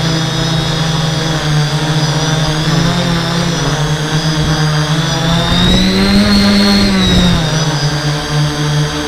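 Hexacopter's six brushless motors and 11-inch propellers in flight, a steady buzzing hum picked up by the onboard camera. About halfway through, the pitch rises for a couple of seconds as the motors speed up, then settles back.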